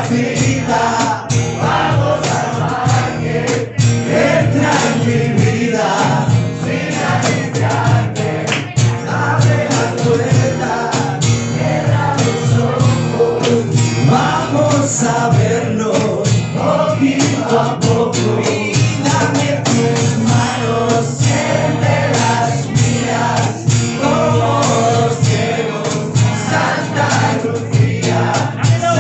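Live acoustic band playing: plucked double bass, strummed acoustic guitar and a hand-played cajón keeping the beat, with a woman and a man singing together.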